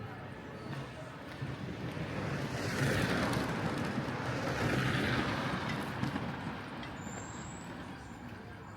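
A vehicle passes close by, its noise swelling for a few seconds and then fading away.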